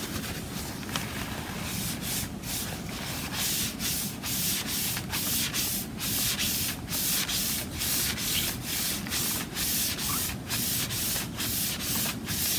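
Rapid back-and-forth rubbing strokes of a small hand-held applicator over glossy photo paper, about two strokes a second, which grow louder and more regular about two seconds in, as orange alcohol ink is blended into the pink.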